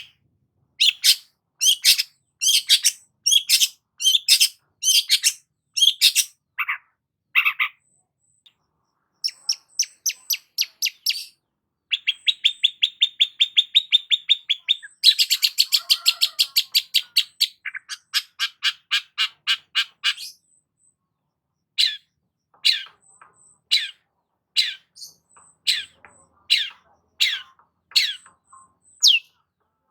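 Long-tailed shrike (cendet) singing hard: runs of sharp, short, falling notes. A fast rattling trill fills the middle, and brief pauses break the song.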